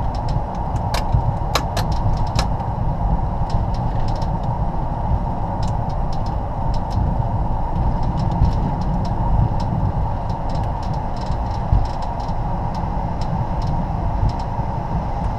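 Steady engine and rolling rumble heard on the flight deck of a Bombardier Global Express slowing on the runway after landing, with scattered sharp clicks and rattles.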